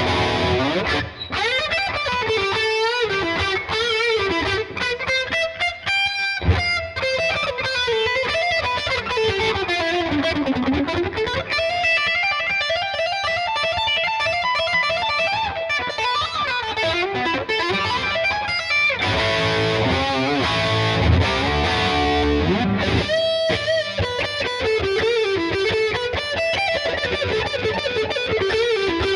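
Gibson SG Standard electric guitar with humbucking pickups, played through a distorted tone: a lead solo of fast runs, string bends and vibrato.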